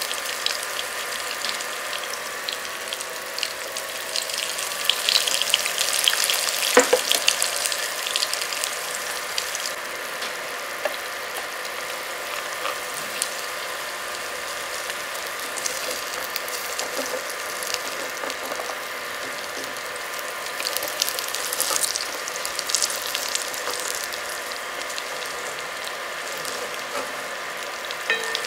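Eggs frying in oil in a wok: a steady sizzle with popping crackles, over a faint steady whine. A sharp knock comes about seven seconds in.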